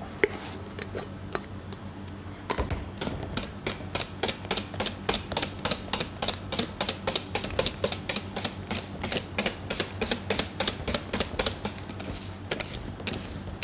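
Wire balloon whisk rattling against a stainless steel mixing bowl in a quick, even rhythm of several clicks a second, starting about two seconds in. It is mixing a custard into whipped cream.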